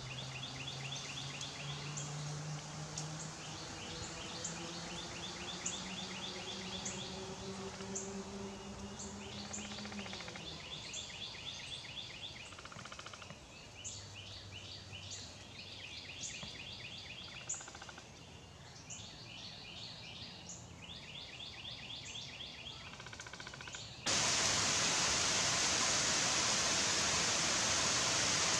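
Woodland ambience: repeated short, rapid chirping trills, high in pitch, over a quiet background, with a faint low hum slowly rising in pitch during the first ten seconds. Near the end it cuts suddenly to the much louder, steady hiss of heavy rain on the forest.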